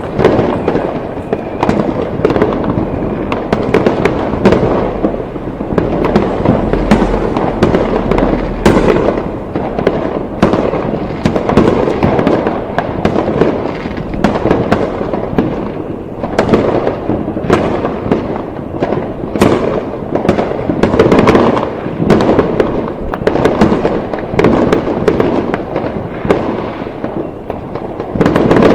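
A dense, continuous fireworks barrage: many overlapping bangs and crackles of firework shells and firecrackers going off in quick succession, with no pause.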